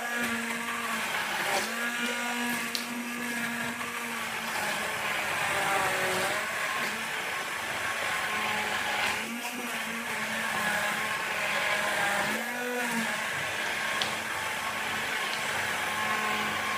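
Handheld stick (immersion) blender running steadily in a bowl of oat, egg and yogurt pancake batter, puréeing the oats into the mix. Its motor pitch dips briefly about three times as the blade meets the thick mixture.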